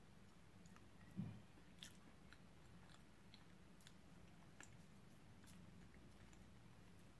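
Faint chewing of a mouthful of blueberry pie: soft, irregular mouth clicks over a low hum, with a single low thump about a second in.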